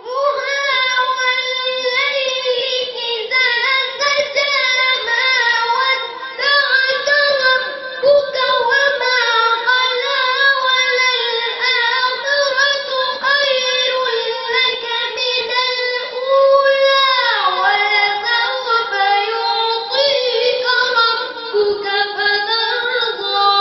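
A young boy's voice chanting Quranic recitation (tilawat) in long, ornamented, melodic phrases with sustained held notes. The pitch falls noticeably about two-thirds of the way through.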